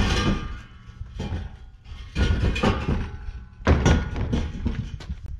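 Several knocks and thunks as the deer feeder's rotomolded plastic hopper and steel frame are gripped, tilted and shifted by hand, the loudest about four seconds in.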